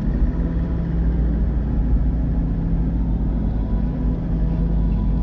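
Car driving at a steady speed, heard from inside the cabin: an even low rumble of engine and tyres on the road with a steady hum.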